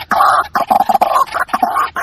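White-breasted waterhen calling: a rapid, loud run of harsh repeated notes, several a second, the bird's call to its companions used as a lure.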